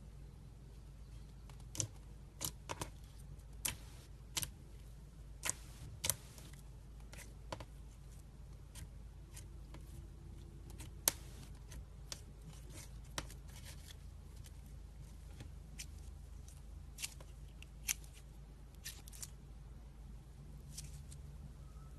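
Slime being played with by hand, giving sharp, irregular popping clicks, about one a second, over a low steady hum.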